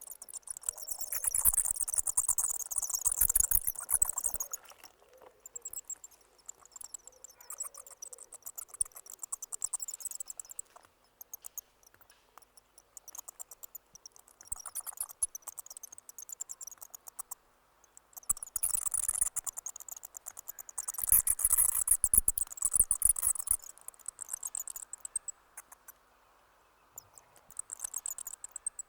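Bat calling: rapid, high-pitched clicking chatter. It comes in two loud bursts, one at the start and one about two-thirds through, with sparser, quieter clicks between them.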